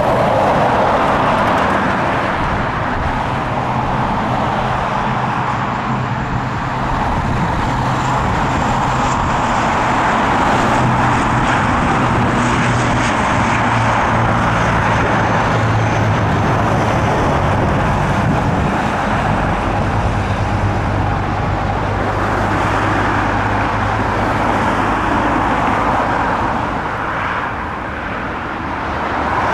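ATR 72 twin-turboprop airliner at take-off power: a loud, steady propeller drone with a low hum and engine noise as it accelerates down the runway and climbs away, dipping briefly near the end.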